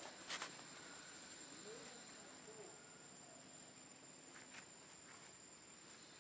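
Faint outdoor ambience with a steady high-pitched insect drone, broken by a short crunch near the start, as of a macaque chewing fruit, and a softer click about four and a half seconds in.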